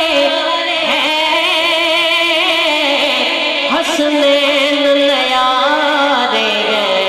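A man's solo voice singing a manqabat into a microphone, drawing out long held notes with a wavering ornament, the pitch stepping down near the end.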